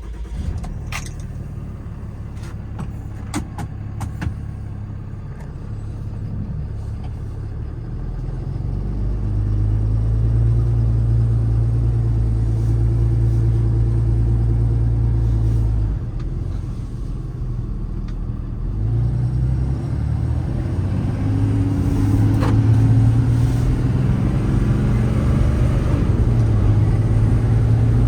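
Cummins 6.7-litre turbo-diesel of a 2013 Ram 5500 running just after a cold start, a steady low drone with a few sharp clicks in the first few seconds. The drone grows louder about eight seconds in, drops suddenly around sixteen seconds, then builds up again.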